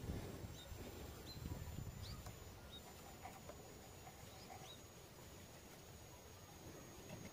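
Faint, short high-pitched bird chirps, about half a dozen scattered through the first five seconds, over a low rumble.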